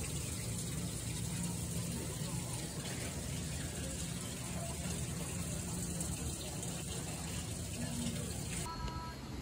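Steady rush of running water. The background changes abruptly near the end.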